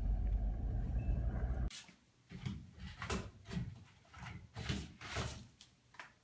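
A car engine and road noise rumble steadily from inside a moving car, stopping abruptly after about two seconds. Then comes a series of short rustling knocks, about two a second, as a cat paws at a toilet paper roll on its metal holder.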